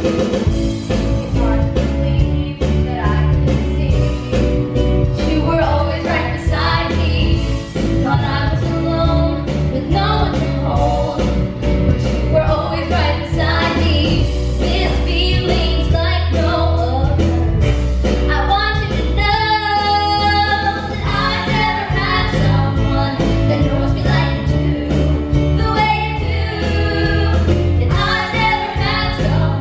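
Two young women singing a duet into handheld microphones over a musical accompaniment with a steady beat and bass.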